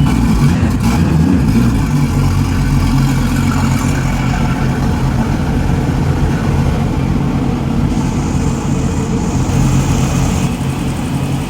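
Volvo Penta 5-liter MPI marine engine idling steadily, run on a water supply out of the water during winterizing to draw fuel conditioner into the fuel system.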